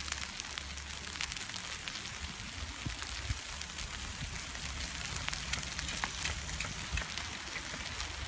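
Heavy snowfall pattering on the rider and the phone: a steady hiss with many small, irregular ticks over a low rumble of wind on the microphone.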